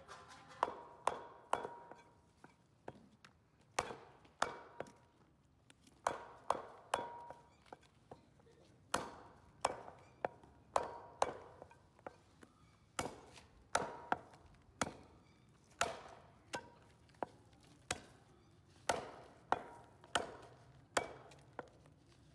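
A butcher's large chopping knife striking goat front-leg meat on a round wooden log block. Sharp chops come at an uneven pace, often two or three in quick succession, and some are followed by a short metallic ring from the blade.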